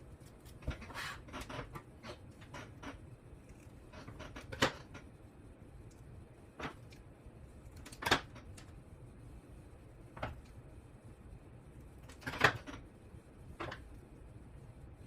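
Scattered light clicks and taps from handling small parts and wires at a workbench, with three sharper ticks spaced a few seconds apart.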